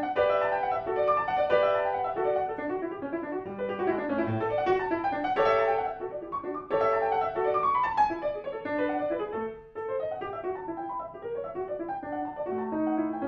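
Grand piano played solo, with quick, busy runs of classical music and a short break about ten seconds in.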